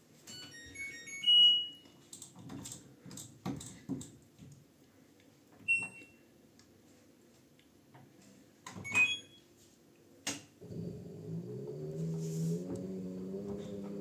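LG Direct Drive washing machine control panel playing a short chime of several quick notes, then single beeps as the program is selected and started. A sharp click follows, then the direct-drive motor hums with its pitch stepping up as the drum begins to turn.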